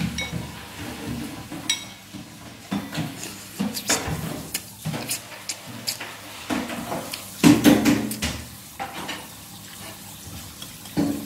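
Metal spoon clinking and scraping against a soup bowl at irregular moments, with some sloshing of broth. The loudest clatter comes about seven to eight seconds in.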